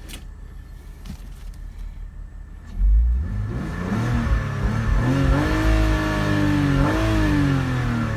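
BMW X3 3.0 inline-six engine idling, then revved: about three seconds in it rises sharply in pitch and level, holds high for a few seconds, and eases back down near the end. The engine is running smoothly after repairs that cured its rough idle.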